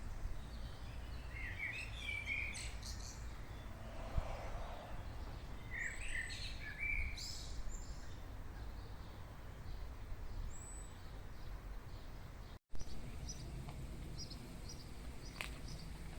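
Small birds chirping and singing over a steady low outdoor rumble. There are short bursts of song about two seconds in and again around six to seven seconds, then a run of quick, evenly spaced high chirps near the end. The sound cuts out briefly about two-thirds of the way through.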